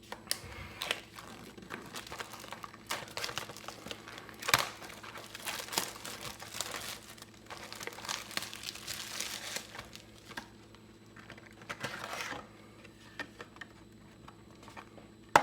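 Plastic wrapping on a trading card booster box being torn and crinkled, a long run of irregular crackling rustles with a sharp snap about four and a half seconds in. The rustling stops about two-thirds of the way through, and a single sharp click comes near the end.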